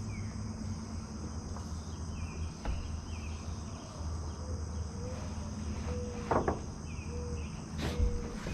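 Steady chorus of crickets, with a few sharp knocks about three, six and eight seconds in from metal roofing panels being handled.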